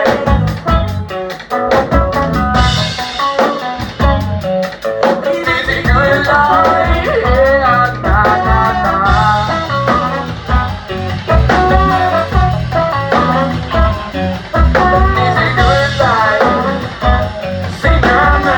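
Live band playing an upbeat song: singing over guitar, bass and a drum kit.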